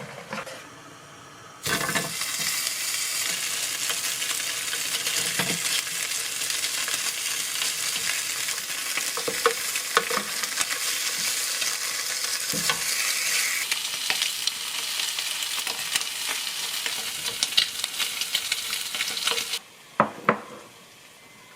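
Food sizzling in a hot frying pan, starting abruptly about two seconds in and cutting off suddenly near the end, with a few light knocks of a utensil against the pan.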